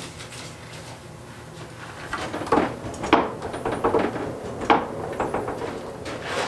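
Blacksmith's iron tongs and stock clinking and scraping at the coal forge. The clatter begins about two seconds in, with a few sharp clanks among lighter knocks.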